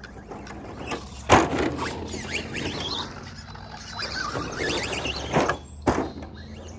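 Electric Team Associated DR10 RC car revving up and down as it is spun around on loose dirt, its motor whining and tyres scrabbling, with a few sharp knocks about a second in and again near the end.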